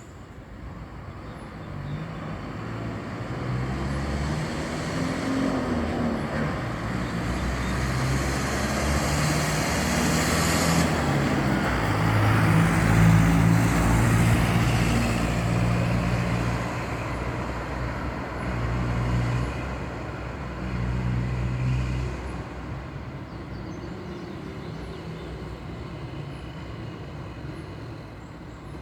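Mercedes-Benz OF-1418 bus's inline-six diesel engine pulling hard under load, its pitch rising and then dropping back several times as it goes through the gears. It grows louder to a peak about halfway through, then fades.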